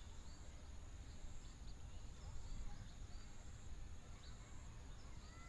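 Faint background noise: a low rumble and a steady thin high hiss, with scattered faint short chirps.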